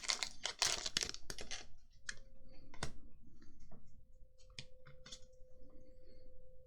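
Crinkling of a foil booster-pack wrapper for about the first second and a half, then scattered light clicks of trading cards being handled and flicked through.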